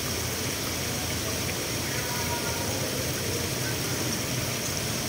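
Steady rushing of water pouring into a koi pond at an inlet and churning the surface, with a low hum underneath.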